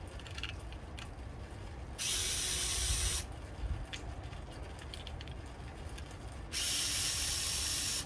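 Electric screwdriver running in two short spells, about a second and then about a second and a half, backing out the screws of an old wired doorbell, with small clicks of handling in between.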